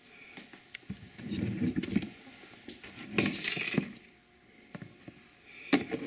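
Light clinks and rattles of kitchen utensils and dishes in three short bouts, as salt is measured out for potato lefse dough.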